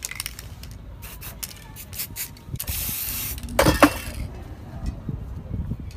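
Spray paint can hissing in one short burst of about a second, after a run of light clicks and scrapes. A brief louder knock with a short ringing tone follows right after the burst.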